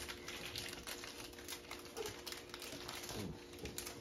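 Scattered light clicks and crinkles of small cardboard snack boxes being opened by hand and handled on a table, over a faint steady hum.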